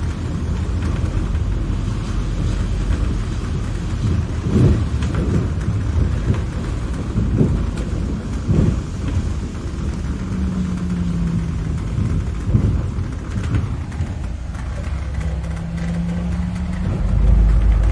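London bus in motion: a steady low rumble of engine and road noise with a few sharp knocks. A steady low hum comes in twice in the second half, and the rumble swells near the end.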